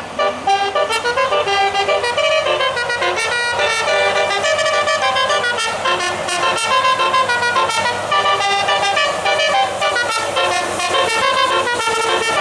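A bus's multi-note 'telolet' musical air horn playing a fast tune, one loud pitched note after another with no break.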